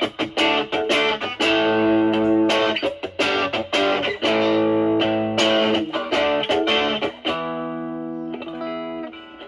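Fender Stratocaster with single-coil pickups played through a Brat distortion pedal with an OP07 op-amp chip, gain around 11 o'clock, into a Marshall Valvestate amp, cleaned up to a lightly driven tone. Picked chords and single notes with sharp attacks, turning to softer, longer-ringing notes near the end.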